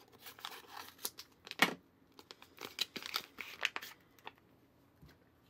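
Scissors cutting open a paper Kool-Aid drink mix packet, with the packet crinkling as it is handled. A run of sharp crackles and snips lasts about four seconds. The loudest snap comes a little over a second and a half in.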